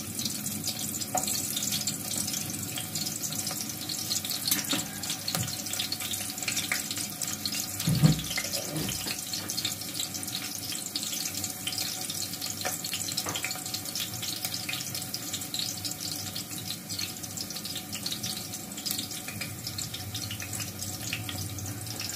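Chopped onion frying in oil in an aluminium pot: a steady sizzling hiss with fine crackles, and one dull thump about eight seconds in.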